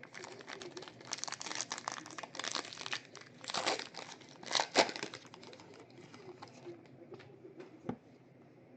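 Plastic wrapping of a trading card box or pack being crinkled and torn open by hand, a run of crackling with two louder rips in the middle, then fading to a few scattered crinkles.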